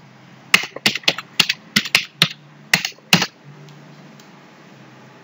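Computer keyboard keys struck about nine times in quick, uneven succession over three seconds as a login password is typed, then the typing stops.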